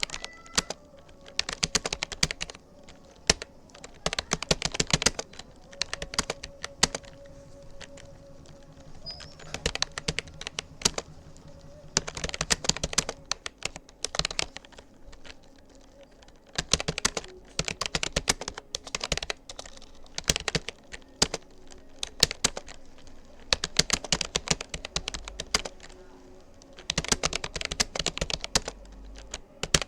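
Typing on a Rapoo computer keyboard: runs of rapid keystroke clicks broken by short pauses.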